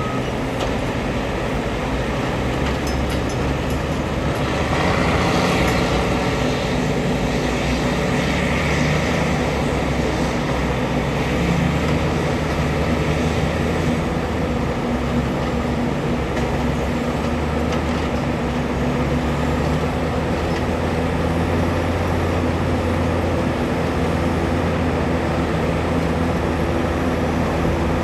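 Heavy diesel mining machinery at work, engines running with a continuous low drone; it grows louder and brighter for a couple of seconds about five seconds in.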